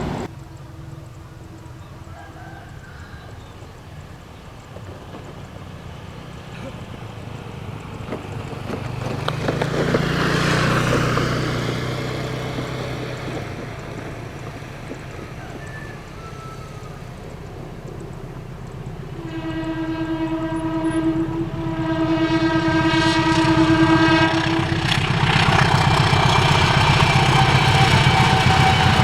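An Indonesian train's horn sounds in two long blasts about two-thirds of the way in, and the train's rumble then grows loud near the end as it comes close. Earlier, a quieter passing sound swells and fades about ten seconds in.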